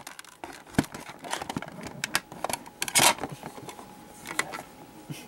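Hard plastic clicking, tapping and rattling as the stiff passenger-bay hatch of a plastic toy spaceship is worked open by hand, with a louder clatter about three seconds in.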